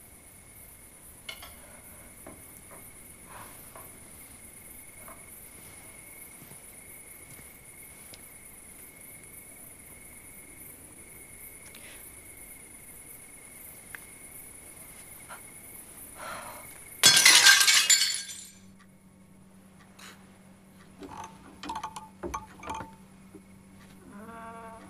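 A glass pane in a door being smashed: one sudden crash of shattering glass about two-thirds of the way in, followed a few seconds later by a few light clinks of glass.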